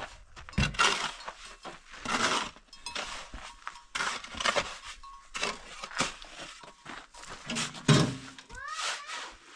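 Steel shovel repeatedly scraping and scooping through a ground pile of sand-and-cement mix, with a heavier thud about eight seconds in as a load goes into the wheelbarrow. A short rising animal call comes near the end.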